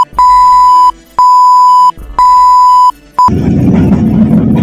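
A loud, steady, high-pitched bleep tone sounding in long beeps about once a second: three full beeps and a short one, masking the clip's audio. About three seconds in it gives way to the low rumbling noise of a moving train carriage.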